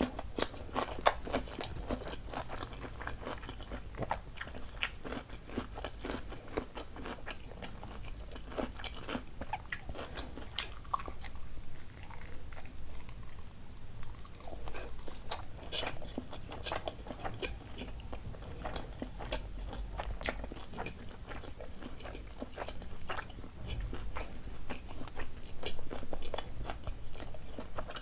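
A person chewing and biting food close to the microphone, a steady run of small crunches and mouth clicks.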